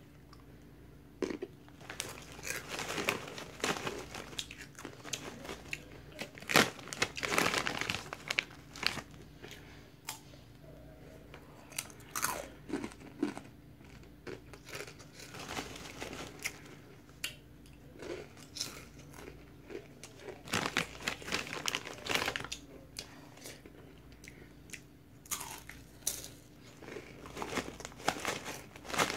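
A person crunching and chewing Takis Fuego rolled tortilla chips: bouts of crisp crunches, with short pauses between bites.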